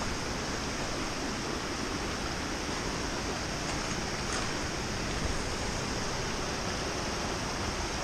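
Steady, even rush of river water running over shallow rocks and a logjam.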